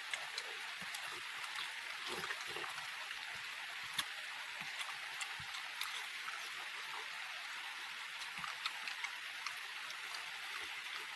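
Close-up eating sounds: soft chewing, lip smacks and small clicks as food is eaten by hand. Behind them runs a steady, even hiss.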